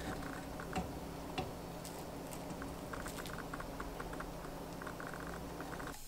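Wooden skewer stirring beeswax pellets in a glass Pyrex measuring cup, making light clicking and rattling, with two sharper clicks about a second in, over a steady low hum.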